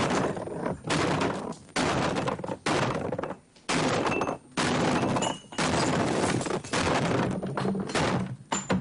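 Axe blows smashing up a wooden table top, about one a second, each with a crash and the clatter of glasses, bottles and objects on the table being knocked about.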